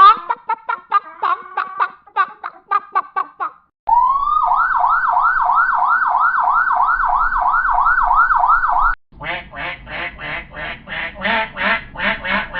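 Three sound effects in a row. First, a chicken clucking in short calls; about four seconds in, an emergency-vehicle siren cuts in with fast rising sweeps, about three a second; it stops suddenly at about nine seconds and a duck starts quacking rapidly.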